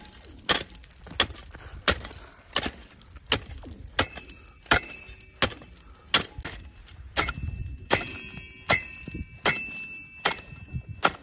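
A small steel spade blade chopping into lake ice, striking about every 0.7 s to cut a fishing hole, with ice chips cracking and scattering. After several strikes a high ringing tone lingers.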